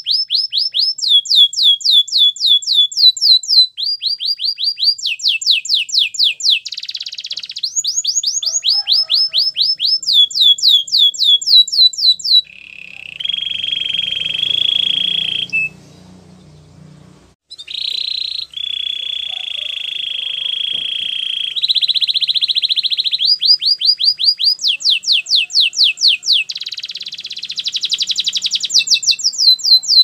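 Canary singing a long song made of rapid trills, runs of quick falling notes, broken in the middle by two longer steady buzzing notes with a short pause between them.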